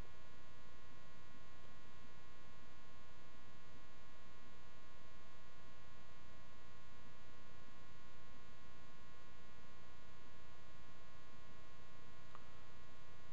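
Steady electrical mains hum with a buzzy edge, unchanging throughout, with one faint tick near the end.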